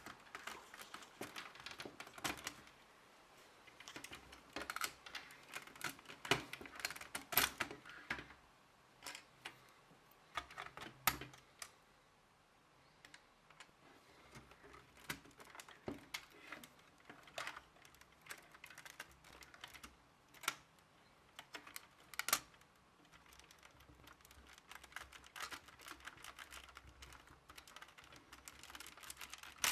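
Lego plastic parts being handled: irregular clicks and rattles, in clusters, with a few sharper single clicks.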